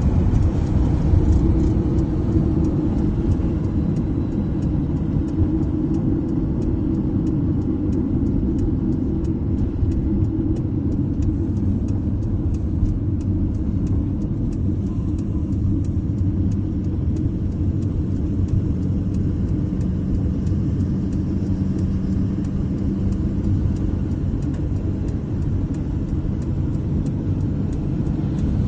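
Car interior noise while driving: a steady low road and engine rumble, with a regular clicking from the hazard-light flasher.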